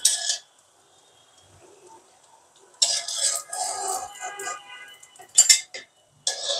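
Metal spatula clinking and scraping against a steel wok as samosas are turned in hot frying oil, in several separate sharp clatters with quiet gaps between them.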